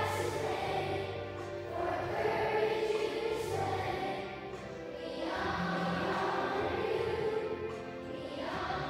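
A large group of schoolchildren singing a song together, with long held notes and a new phrase every few seconds.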